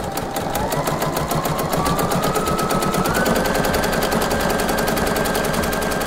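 Portable electric sewing machine stitching through two layers of T-shirt fabric: a rapid, even stitching clatter over a motor whine. The whine rises in pitch as the machine speeds up over the first few seconds, then holds steady at full stitching speed.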